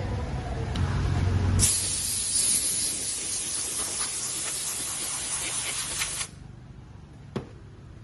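Compressed air hissing steadily from a blow gun, cleaning a dusty pleated cabin air filter; it starts abruptly about a second and a half in and cuts off sharply after about four and a half seconds. A low rumble comes before it, and there is a single sharp click near the end.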